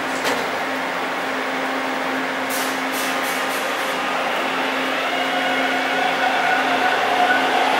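TTC subway train humming steadily while stopped at the platform, with a few short hisses near the middle. From about five seconds in, a rising motor whine grows louder as the train starts to pull out of the station.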